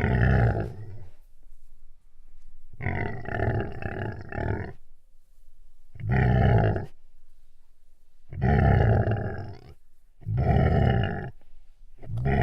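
An animal growling: six rough growls about a second apart, each lasting about a second. The second runs about two seconds and pulses about twice a second.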